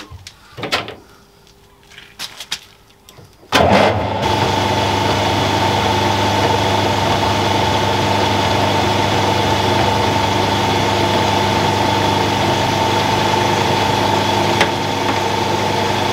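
A few knocks from the lathe controls, then about three and a half seconds in a metal lathe starts suddenly and runs steadily at slow speed, about 85 RPM, with a constant motor and gear whine. It is running in reverse to back the threading die off the freshly threaded pin.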